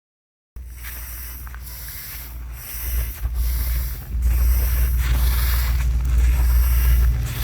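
Drying rice grains swishing as they are pushed and spread, in repeated strokes about once a second, under a heavy low rumble of wind on the microphone. The sound cuts in after half a second of silence.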